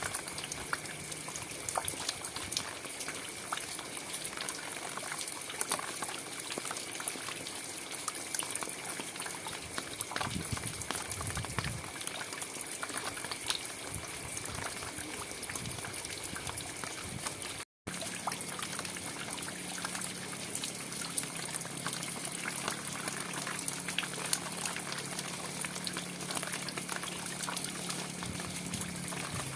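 Steady rain, with many individual drops ticking through a constant hiss. The sound drops out completely for a split second about eighteen seconds in, and after that a low steady hum runs under the rain.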